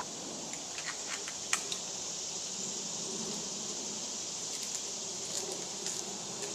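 Steady high-pitched drone of a summer insect chorus, with scattered faint clicks and taps.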